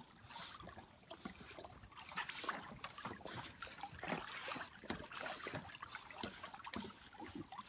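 Two golden retrievers paddling through lake water, a faint, irregular splashing and lapping.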